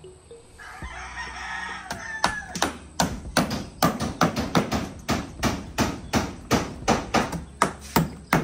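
A rooster crows about a second in; then a hammer drives nails into a plywood sheet in a steady run of blows, about three a second.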